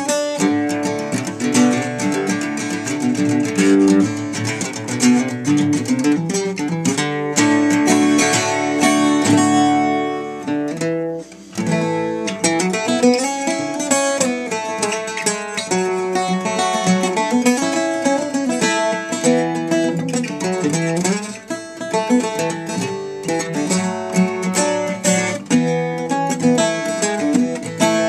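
1918 Gibson mandocello strung as an octave mandolin, played solo with a pick in a run of plucked notes and chords, with a brief lull about eleven seconds in. The instrument is in poor shape, its top collapsing and its fingerboard warped.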